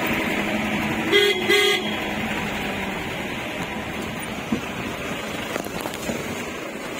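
A vehicle horn honks twice in quick succession about a second in, over the jeep's engine running steadily as it drives a rough dirt track.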